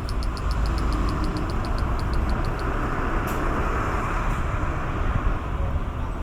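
Large brown cicada (Graptopsaltria nigrofuscata) ending its song in a string of short, evenly spaced high pulses, about five a second, that slow a little and stop a couple of seconds in. Throughout is a steady background rumble of traffic.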